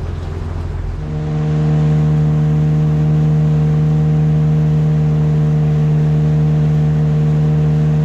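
A boat motor running at a steady speed, a steady drone that comes in louder about a second in, over a rushing noise.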